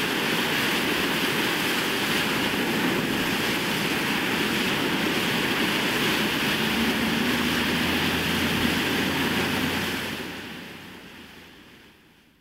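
A steady rush of water, like surf or fast-flowing water, fading out over the last two seconds or so.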